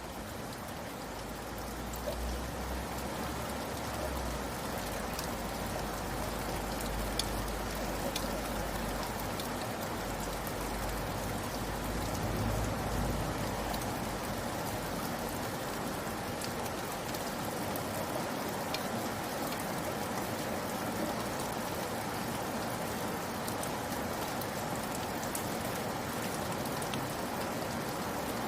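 Steady rain falling, an even hiss with scattered drop clicks, and a low rumble underneath through roughly the first half.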